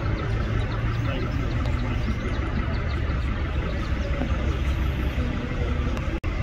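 Diesel engines of heavy trucks and machinery running steadily: a low rumble with a broad mechanical noise over it. The sound cuts out for an instant near the end.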